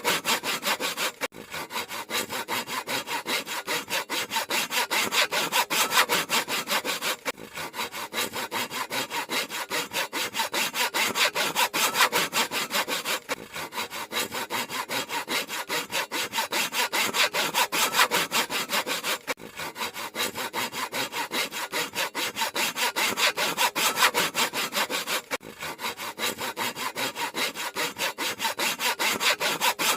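Handsaw cutting through wood in rapid, even rasping strokes, with a brief break about every six seconds.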